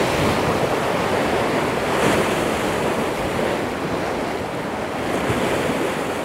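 Rough ocean surf breaking and washing over rocks, a steady rushing noise, with wind on the microphone.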